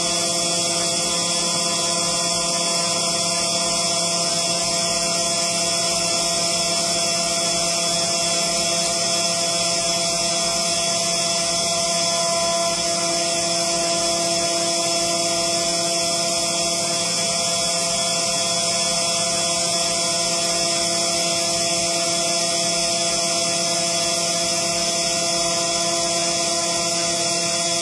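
CNC engraving machine running, a steady whining hum from its spindle and stepper motors, with one tone shifting partway through as the moves change.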